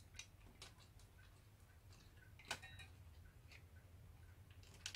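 Faint scattered clicks and light ticks from handling a VCR's head drum assembly and feeding its thin wires down through the metal chassis, the loudest click about two and a half seconds in and another near the end. A low steady hum runs underneath.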